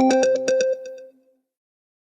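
Apple iPhone ringtone ending: a quick run of short, bell-like pitched notes that stops under a second in, the last notes ringing out and fading away.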